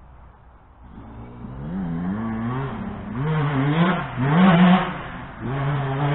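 2007 Yamaha YZ125 two-stroke motocross bike revving up and down repeatedly as it is ridden around the track. It grows louder from about a second in and is loudest about two-thirds through, with a brief drop just before the end.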